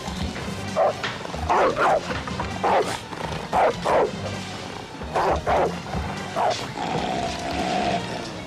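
A large dog, a Rottweiler, barking repeatedly in short loud barks, several of them in pairs, over a tense film score.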